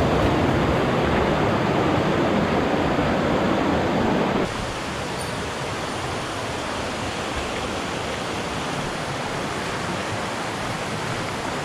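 Rushing water of a mountain stream, a steady noise. About four and a half seconds in it drops suddenly to a quieter, thinner rush with more hiss.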